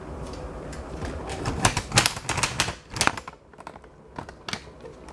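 A quick, irregular run of light clicks and taps, densest about two seconds in, thinning out and quieter after about three seconds.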